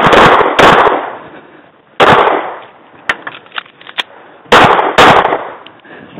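Semi-automatic pistol fired close to the microphone, five shots: a quick pair at the start, a single shot about two seconds in, and another quick pair near the end. A few fainter sharp clicks fall between the single shot and the last pair.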